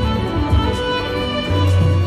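Violin playing a melody of held notes over a low bass accompaniment.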